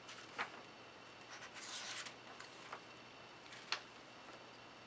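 Paper pages of a spiral-bound sketchbook being turned and handled: a rustle of paper in the middle, with a few sharp taps, the sharpest about three and a half seconds in.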